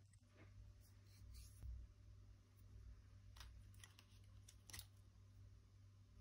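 Faint clicks and taps of metal ballpoint pens being handled, a cluster of them as one is lifted out of its case, over a low steady hum.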